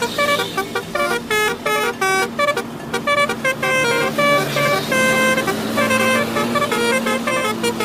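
Bus 'telolet' multi-tone horn playing a fast melody of short notes that jump from pitch to pitch, with brief gaps between phrases and a steady low tone underneath.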